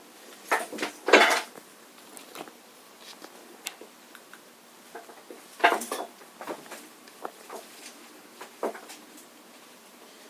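Scattered knocks, clicks and rustles of things being handled, a cluster about a second in and another loud one near six seconds.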